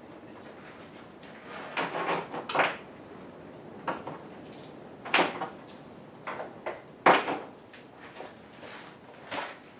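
Parts and packaging handled and rummaged through: a string of separate clunks, scrapes and rustles, loudest about two, five and seven seconds in.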